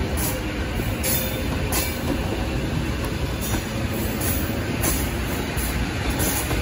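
EP2DM electric multiple unit passing close by: a steady, loud rumble of wheels on rails, with brief high-pitched hisses now and then.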